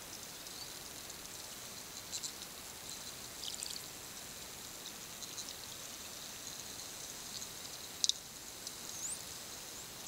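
Bottlenose dolphins heard underwater: scattered clicks and short click trains, the loudest about eight seconds in, and a brief rising whistle near the end, over a steady underwater hiss.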